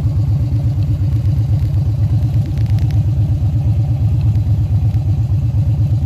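Motorcycle engine running with a steady, low pulsing exhaust beat, heard close up from the rider's seat.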